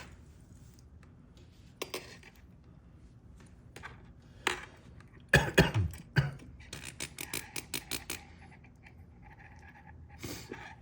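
Small metal lock-cylinder parts being handled on a bench: scattered light clicks, a short clatter of louder knocks about five seconds in, then a quick run of light clicks.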